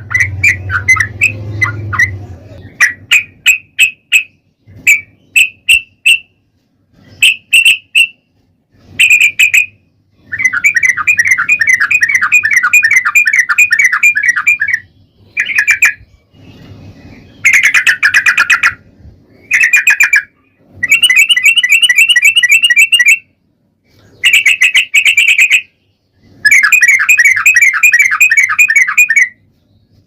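Yellow-vented bulbul (trucukan) singing its long rolling chattering song: short bubbly notes at first, then rapid trilled bursts of two to four seconds with short pauses between them. A low rumble sits under the first two seconds.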